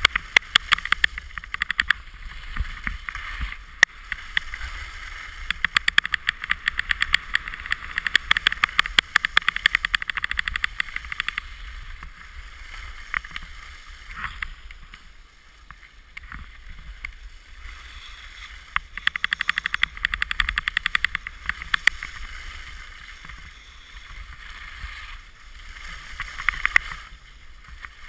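Alpine skis running down a groomed slope, heard from a camera on the skier: a steady scraping hiss of the skis on hard-packed snow with rapid crackling chatter, over a low wind rumble. The scraping and chatter ease off for a while past the middle and pick up again near the end.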